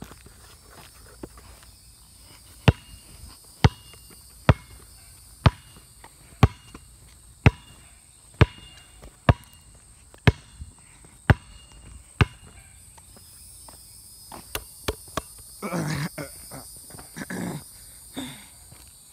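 Sneaker footsteps on an asphalt road, sharp taps about once a second that stop about two thirds of the way through. Near the end come a few short, louder sounds.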